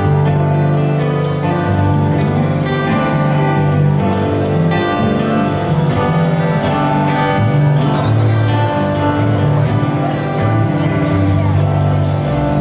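A live rock band playing an instrumental passage on electric guitars, acoustic guitar, keyboard and drums, with held chords over a bass line that changes notes every second or so.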